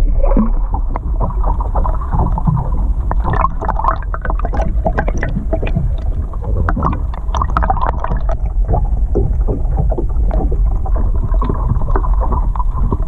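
Muffled underwater sound picked up by a submerged camera: a steady low rumble of moving water with many small clicks and pops.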